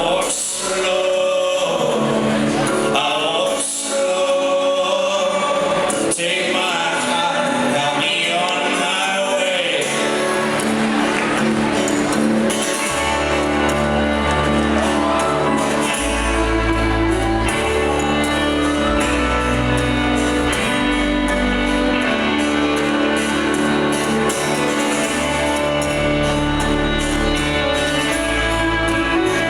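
Live folk-rock band music: several voices singing without clear words over acoustic instruments, joined about twelve seconds in by strong bass notes as the band builds.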